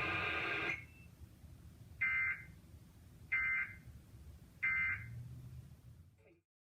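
Emergency Alert System end-of-message signal: three short, identical screechy digital data bursts about 1.3 s apart, the SAME end-of-message code that closes the test. It follows a steady buzzing tone that cuts off under a second in.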